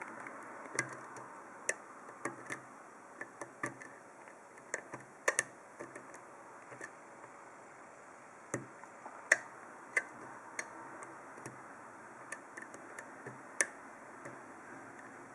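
Small irregular metallic clicks and ticks of a dimple-lock pick and Z-wrench working the pins of an Abus D10 dimple euro profile cylinder, a couple of louder clicks among them.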